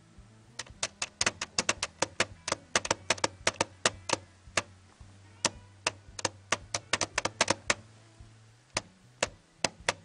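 Lenovo ThinkPad T540p touchpad clicked by a finger several dozen times, sharp loud clicks in quick irregular runs with short pauses about halfway through and near the end. The click is pretty loud and flimsy, a flaw the owner finds unpleasant and thinks may be limited to his unit.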